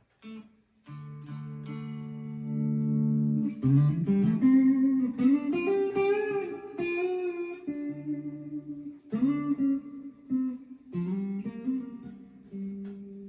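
Squier Classic Vibe 50s Telecaster electric guitar played through an amp's clean channel with a little reverb and no pedals. Chords are struck and left ringing, then a single-note line with string bends follows, then more chords and notes.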